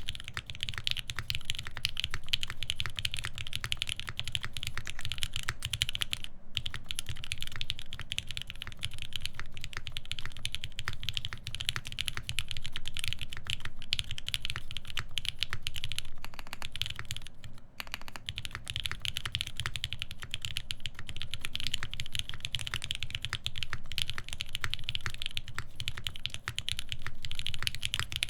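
Steady fast typing on a SINGA Unikorn mechanical keyboard with Krytox-lubed Lavender switches, a full FR-4 plate and GMK keycaps: a dense, continuous run of keystroke clacks. There are two brief pauses, at about six seconds in and about eighteen seconds in.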